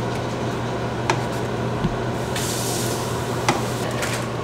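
Stovetop cooking in a pan of tomato sauce: a steady hiss over a low hum, with a few light clicks of a metal spoon against the pan and a brief brighter hiss about two and a half seconds in.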